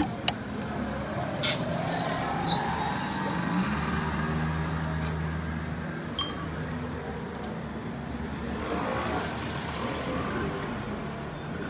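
Motor traffic close by: an engine whose pitch rises in the first few seconds, then runs steadily, over a continuous street hum. Two sharp clinks of glassware right at the start.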